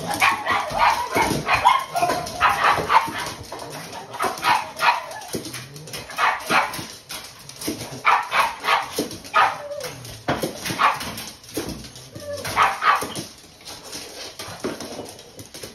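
Several pugs barking and yipping excitedly in short, quick bursts, typical of dogs waiting for their food.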